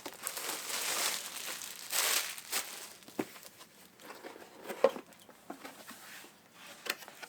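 Packaging crinkling and rustling as a subscription box is opened and its contents uncovered, busiest over the first few seconds, then quieter handling with a few scattered light knocks.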